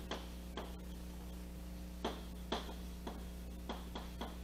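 Chalk tapping and scratching on a blackboard in short, irregular strokes as something is written, over a steady low electrical hum.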